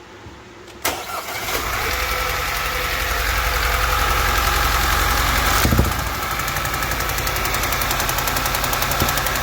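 Audi 2.0 TFSI turbocharged four-cylinder engine starting about a second in, then idling with a rapid ticking. A short thud comes near six seconds in, after which the idle settles slightly quieter.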